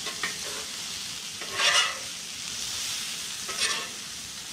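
Hash browns sizzling on a hot Blackstone steel flat-top griddle, with a metal spatula scraping across the plate three times, the loudest scrape about one and a half seconds in.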